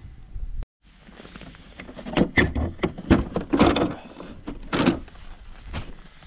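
Plastic engine cover of a Mercedes OM646 diesel being pulled off its mounts, giving a cluster of thunks and knocks about two to five seconds in.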